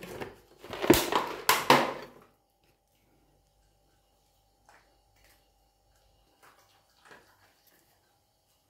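Dry dog kibble tossed onto a bare concrete floor, a loud clattering scatter in the first two seconds. After it comes quiet, with a few faint crunches as a dog eats.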